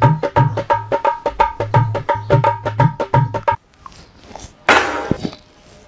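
Background music: a fast, even run of tabla-like drum strokes with a steady ringing tone, which stops about three and a half seconds in. About a second later comes a short burst of noise.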